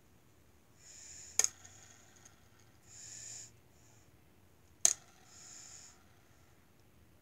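Two sharp clicks about three and a half seconds apart, from flicking the arrow of a handheld jelly-bean game spinner. Short breathy hisses come before and after each click.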